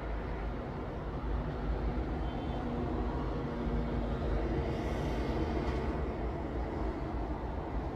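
Steady low ambient rumble with a faint hum running through it; a brief hiss rises and fades about five seconds in.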